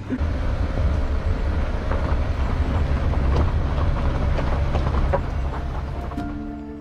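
Car driving along a dirt road: a steady low rumble of engine and tyres with a few faint knocks. Soft held music tones come in near the end.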